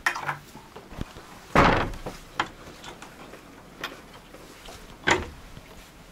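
Old wooden shed door knocking and bumping as it is handled: several short, sharp knocks, the loudest about one and a half seconds in and another near the end.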